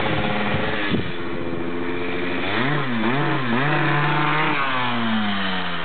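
Gilera Runner scooter engine revving: its pitch dips and climbs back three times in quick succession about halfway through, holds high, then falls away steadily near the end as the throttle eases off.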